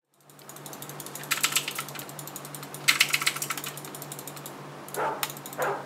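Computer keyboard typed on in quick bursts of rapid key clicks, over a steady low hum; a few short, duller sounds come in near the end.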